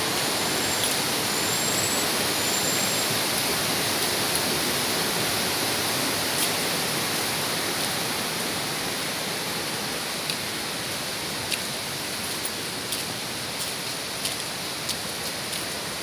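Steady rush of water from a full river and waterfall: a constant, even hiss that eases slightly toward the end, with a few faint clicks in the second half.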